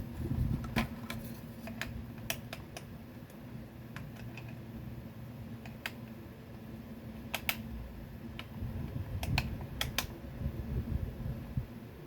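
Irregular small clicks and taps of a screwdriver turning out a screw from a plastic toy grenade launcher, with the plastic body being handled. The screws holding the toy's scope are being loosened.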